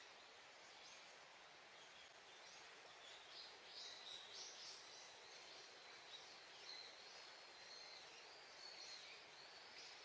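Very faint outdoor ambience: a soft steady hiss with scattered small bird chirps that start about three seconds in, and a thin, steady high-pitched tone.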